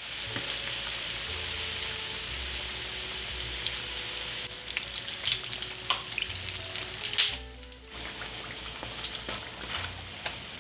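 Samosas deep-frying in 350 °F oil in a stainless pan: a steady sizzle with crackles, and clicks of a wire spider skimmer against the pan as they are turned. The sizzle drops away briefly a little past halfway.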